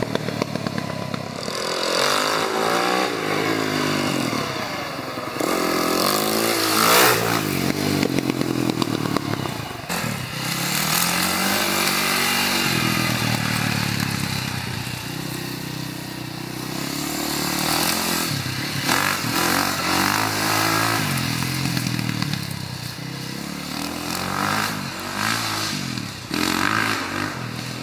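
A 2004 Husaberg 450 single-cylinder four-stroke dirt bike being ridden hard. Its revs climb and drop over and over as the rider accelerates and backs off, and the engine is loudest about seven seconds in.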